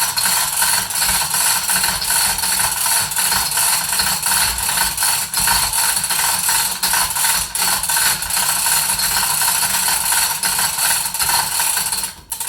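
Manual 2-ton chain hoist being hand-pulled to lift a load: a rapid, continuous rattle of chain links running over the sprocket with ratchet-pawl clicking and a metallic ring. It stops abruptly near the end.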